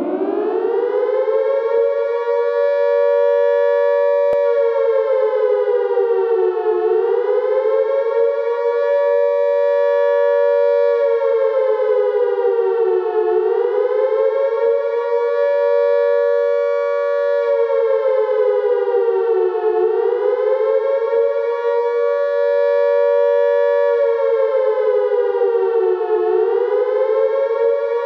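A siren-like wail: a loud, held tone of several pitches sounding together. It finishes its rise in pitch in the first two seconds, then sags and climbs back about every six and a half seconds.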